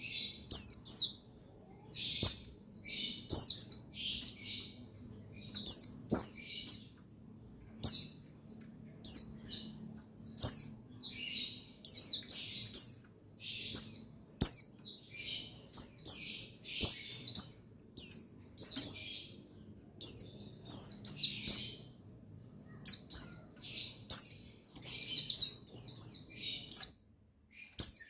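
Pleci buxtoni white-eyes chirping and twittering in rapid, high-pitched phrases, one burst after another, over a faint low hum. The calling stops shortly before the end.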